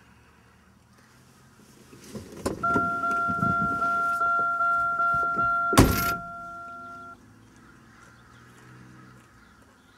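A click, then a car's warning chime dinging about two and a half times a second for several seconds, over rustling and shuffling inside the car. A single sharp, loud bang cuts in a little before six seconds, and the chime stops about a second later.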